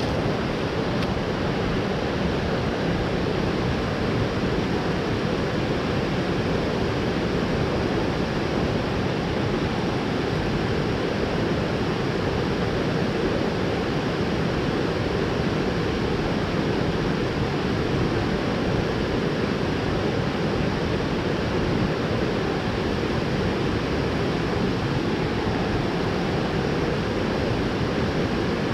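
Mountain stream water rushing over rocks: a steady, even rush with no breaks.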